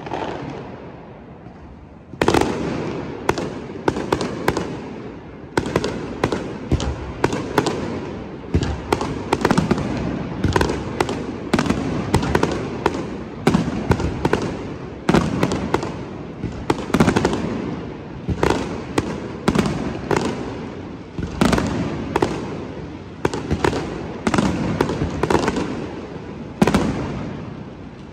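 Fireworks display: after a brief lull, a barrage of aerial shell bursts starts about two seconds in, with sharp bangs going off two or three a second.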